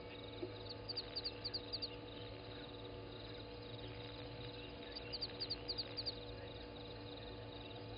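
A bird calling at a waterhole at dawn: a quick run of five or six short, high chirps, given twice, over a steady low hum.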